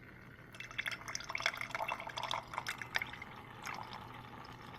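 Hot brewed coffee from a Bunn coffee maker starting to drip and trickle into a mug, the first coffee out after the brewer comes on. The irregular spattering starts about half a second in, is busiest for the next couple of seconds, then thins out.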